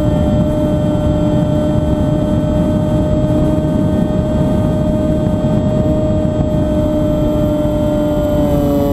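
Model aircraft's motor and propeller running at a steady drone, with wind rushing over the onboard microphone; the pitch dips slightly near the end.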